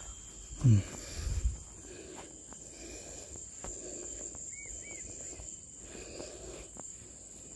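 Steady high-pitched drone of insects, with a short vocal sound about half a second in and some rustling just after. A few faint high chirps come about two thirds of the way through.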